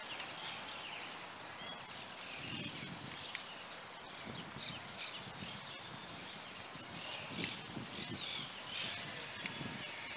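Several small birds chirping and whistling over a steady outdoor hiss, with a faint low rumble that comes and goes.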